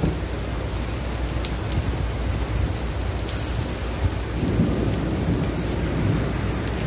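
Heavy rain pouring down onto wet asphalt and parked cars, a steady downpour hiss. About four seconds in, a low rumble of thunder swells beneath it.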